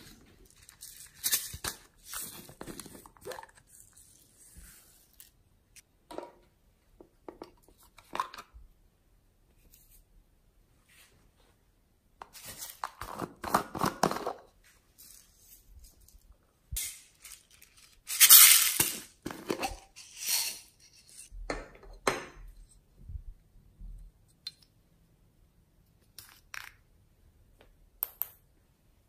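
Small plastic jars and containers handled and opened, making scattered clicks, clinks and rustling at irregular intervals. The loudest is a brief rustling burst about two-thirds of the way through.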